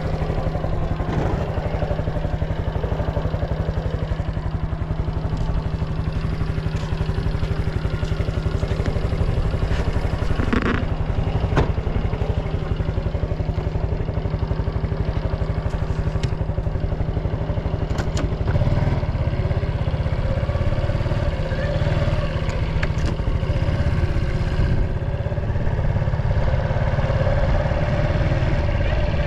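Honda Super Cub 110 (JA07) fuel-injected single-cylinder four-stroke engine idling steadily, running without abnormal noise. About two-thirds of the way in its low note shifts and grows slightly louder, and a few light clicks come near the middle.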